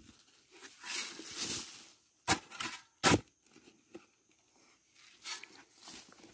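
Digging into earth with a mattock: a scraping rush of loose soil about a second in, then a string of sharp knocks as the blade strikes the ground, the two loudest close together near the middle.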